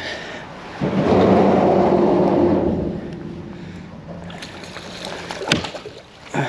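Water splashing and sloshing at a kayak's side as a hooked tautog (blackfish) is brought up and grabbed by hand. A loud rushing burst about a second in, then a sharp splash near the end.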